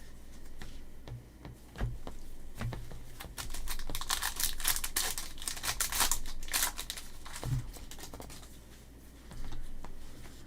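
A trading card pack's wrapper being torn open and crinkled, in a crackly run of rustling through the middle, with a couple of light thumps from handling.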